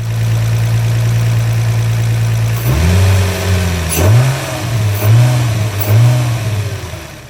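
Infiniti G35's VQ V6 idling steadily, then revved in four quick throttle blips from about three seconds in, with a hiss throughout. The hiss is air being sucked in through a small hole in a torn intake coupler: a vacuum leak.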